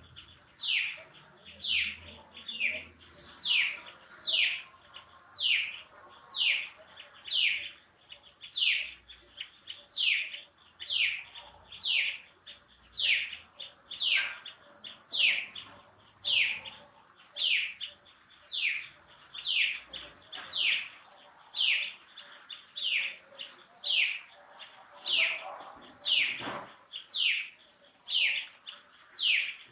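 A bird calling over and over: short, sharply falling whistled notes, a little more than one a second, some coming in quick pairs.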